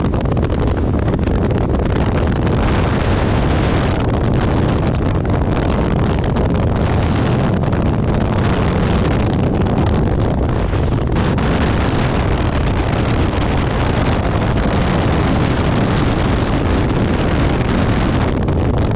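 Wind rushing steadily over the microphone of a camera mounted on a BMW R1200GS motorcycle at road speed, with the low drone of the bike underneath.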